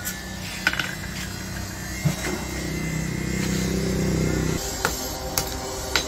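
A few sharp, separate hammer blows on a blacksmith's steel anvil while a machete blade is being forged. Under them runs a steady low motor-like hum, which swells and then cuts off suddenly a little past the middle.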